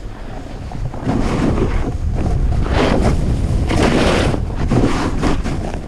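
Wind rushing over the microphone of a skier going downhill, with skis hissing and scraping across the snow in repeated surges; it grows louder about a second in as speed picks up.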